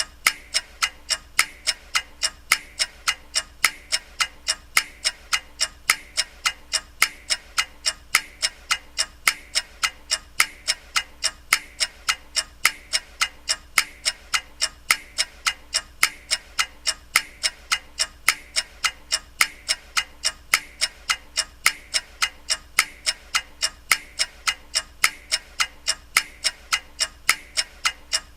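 Clock ticking steadily, with evenly spaced sharp ticks at about two a second.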